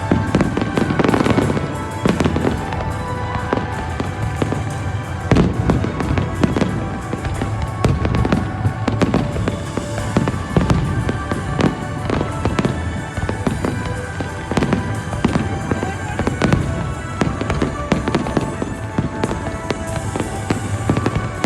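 Fireworks display: a rapid, continuous run of bangs and crackling from shells bursting, with no pause.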